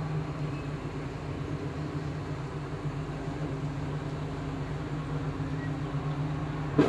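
Steady low machine drone with a constant hum, and one sharp knock near the end.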